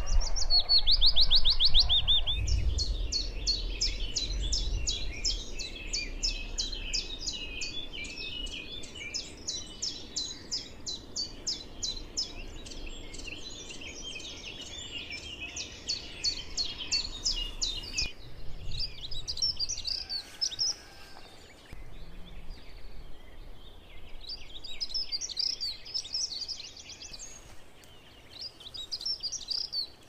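Small birds singing and chirping: long trains of rapid, high repeated notes that thin out after about eighteen seconds into shorter bursts of chirps. A low rumble sits under the first few seconds.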